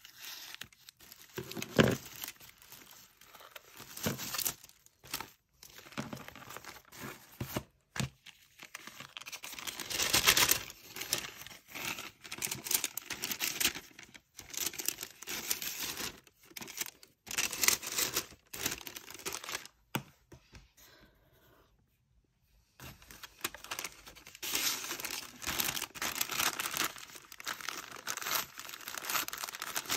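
Paper and cellophane packaging bags rustling and crinkling as they are handled and folded, on and off, with a few seconds' lull about two-thirds of the way through.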